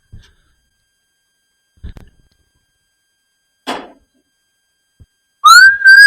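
A few faint knocks and a short scuff, then about five seconds in a person starts whistling loudly: a high clear note that slides up and holds.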